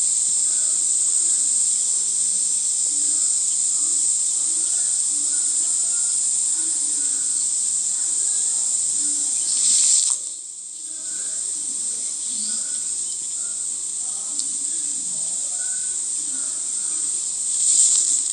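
A steady, high-pitched chorus of insects chirring in grass, with a short dip in loudness about halfway through.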